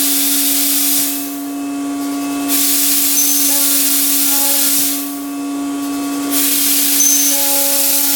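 CNC router milling: a steady spindle tone under a loud cutting hiss. The hiss drops away twice for about a second and a half each time while the tone carries on.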